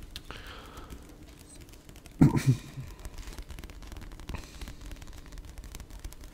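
Paperback book handled close to a microphone: the cover and pages tapped and rubbed in many quick, faint clicks and scratches. One short, loud, low sound comes a little over two seconds in.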